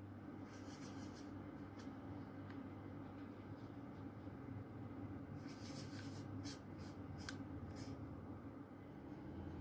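Faint scratchy strokes of a drawing tool on paper, coming in short runs, the busiest run about halfway through. A steady low hum runs underneath.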